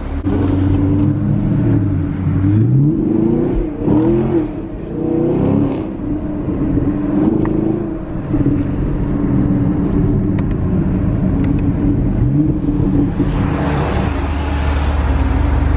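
Performance car's engine heard from inside the cabin, its pitch rising and falling several times as it accelerates and shifts gears. Near the end it runs steadier and louder, with a rush of road noise.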